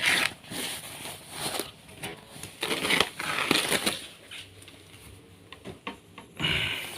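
Rustling and handling noises of packaging as the guitar is unwrapped and lifted out, coming in several irregular bursts with quieter stretches between.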